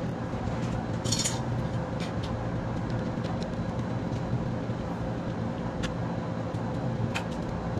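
Small plastic clicks and rattles as a printer's plastic ink tank block and its sensor board are handled and fitted together, a short rattle about a second in and a few single clicks later, over a steady background hum.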